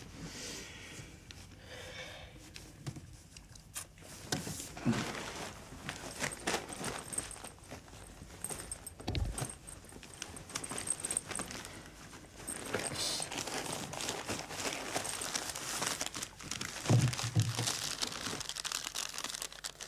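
Paper crinkling and rustling as a package wrapped in thin paper is handled on a table, heaviest in the second half, with a few soft knocks.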